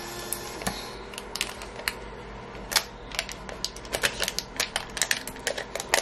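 Irregular sharp clicks and crackles of vinyl decal and clear plastic transfer tape being pressed onto and peeled off a ceramic mug by hand. The clicks come faster and closer together in the second half.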